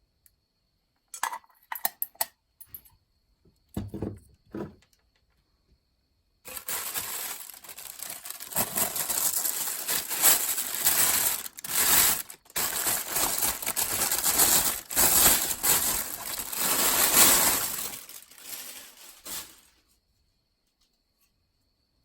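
Ceiling fan parts and packaging being handled during unboxing: a few light clinks and knocks, then a long stretch of continuous rustling that stops a few seconds before the end.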